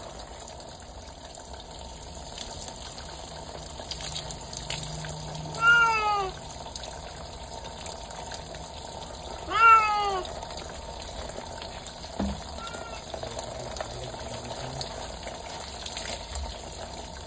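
Domestic cats being bathed, meowing: two long, loud calls falling in pitch about four seconds apart, then a faint short one, over the steady hiss of water pouring down on them.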